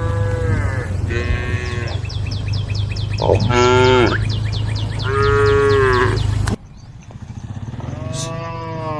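Several cows mooing one after another, long calls that fall in pitch, the loudest about three and a half seconds in. A low steady rumble runs underneath and cuts off abruptly about two-thirds of the way through.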